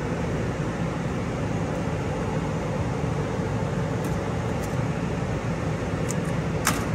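Steady mechanical fan noise with a low hum, with a few light taps and clicks from about four seconds in as material is handled on the cutter bed.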